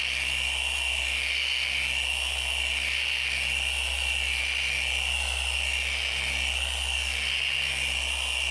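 Porter Cable 7424XP dual-action polisher with a 4-inch foam pad running steadily against car window glass, a constant high whine over a low hum. It is working an abrasive water spot remover into the glass to take off water spots and road film.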